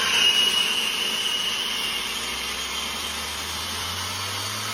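Hair dryer blowing steadily: a hiss of rushing air, with a faint high whine that sinks a little in pitch over the first two seconds and a low hum coming in about three seconds in.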